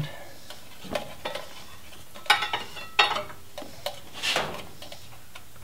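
Scattered light metallic clinks and two longer scrapes as a Jeep 2.5-litre engine's exhaust manifold is pulled back and a new manifold gasket is worked over a bolt, the first scrape a couple of seconds in and the second near four seconds.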